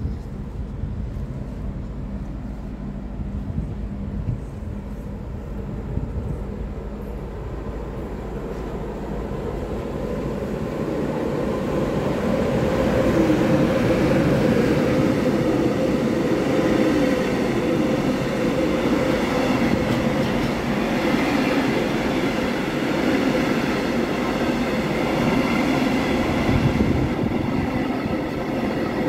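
Container freight train hauled by a Siemens Vectron electric locomotive passing through a station, its wheel and rail noise growing louder about eleven seconds in as the locomotive arrives, then a steady rumble as the container wagons roll by.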